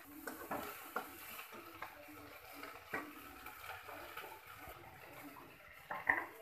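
Metal spatula scraping and clinking against a steel kadai while onion and capsicum are stir-fried, in scattered strokes. There is a sharper clatter near the end.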